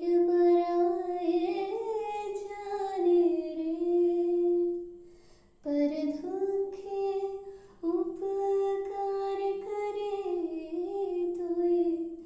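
A solo voice singing a slow, unaccompanied melody in long held notes, pausing briefly about five and a half seconds in and again near eight seconds.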